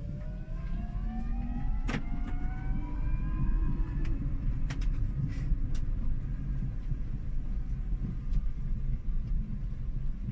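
Drive motor of a small two-seat electric car whining, rising steadily in pitch as the car accelerates for the first four seconds, then fading as it eases off. Under it, a steady low rumble of tyres and road heard inside the cabin. A sharp click about two seconds in.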